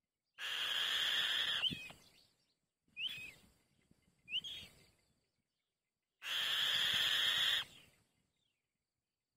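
White-tailed kite calls: two long raspy screeches of about a second and a half each, with two short rising whistled notes between them.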